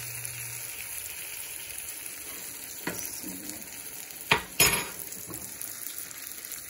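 Sliced onions frying in desi ghee in a small pan, a steady sizzle while a spoon stirs them, the onions still pale at the start of browning for a tarka. Two sharp knocks a little past halfway.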